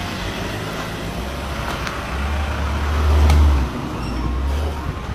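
Street traffic noise with a low vehicle rumble that swells about two seconds in and eases off after about a second and a half.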